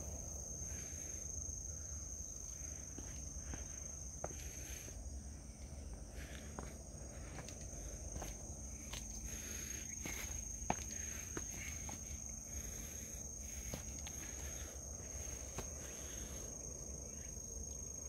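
Footsteps walking downhill on a stone trail strewn with dry leaves: irregular steps and scuffs, with one sharper click past the middle. A steady high-pitched whine runs underneath.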